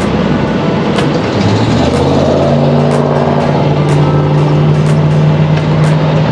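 Truck engine running under way, heard from the cab. About a second and a half in it rises in pitch as the truck accelerates, then holds a steady note.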